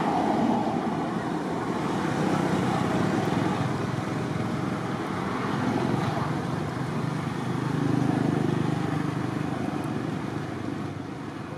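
Steady low rumble of outdoor background noise, swelling and easing a few times.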